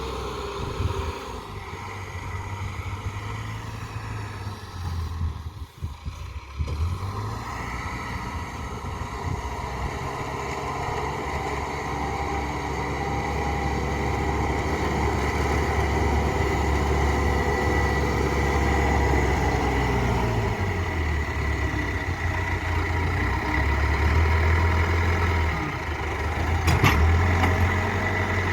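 Backhoe's diesel engine running, its low drone falling away and building again several times as the load changes, with one sharp knock near the end.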